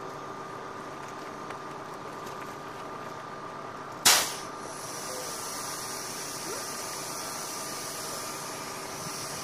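Steady hum of an idling vehicle engine with faint steady tones. About four seconds in, a sudden loud burst of hissing noise dies away within half a second, and a steadier high hiss follows.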